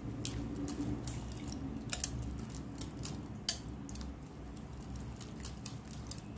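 Wire whisk beating eggs and chopped vegetables in a glass bowl, its wires clinking irregularly against the glass, with a couple of sharper clinks about two and three and a half seconds in.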